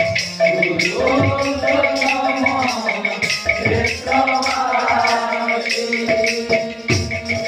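Kirtan devotional music: voices singing a chant over hand cymbals ticking steadily at about four strokes a second, with occasional deep drum strokes.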